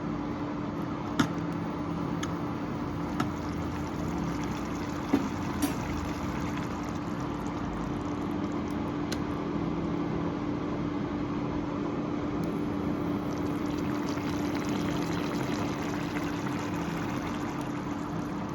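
Palak paneer's spinach gravy cooking in a pan: a steady bubbling hiss over a low steady hum, with four sharp clicks in the first six seconds.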